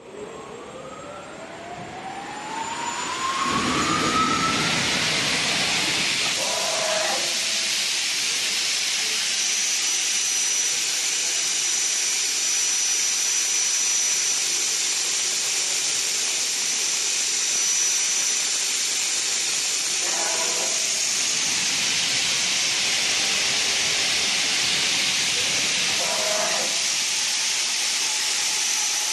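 Emerald F550 five-axis profile machining center running: a spindle whine rises steadily in pitch over the first few seconds, then a loud steady hissing noise holds, with a thin high whine for several seconds in the middle and a few brief sounds.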